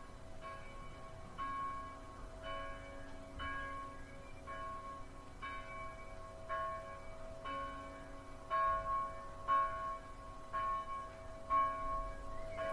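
Church bells ringing, about one stroke a second, each stroke ringing on into the next.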